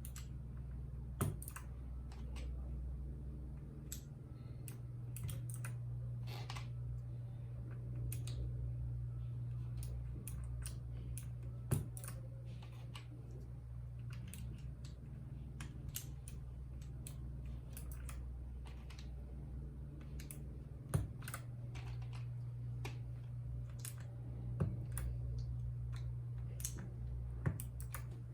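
Keys of a RAKK Lam Ang Pro mechanical keyboard with bronze switches being pressed: scattered, irregular clicks, a few of them louder than the rest, over a steady low hum.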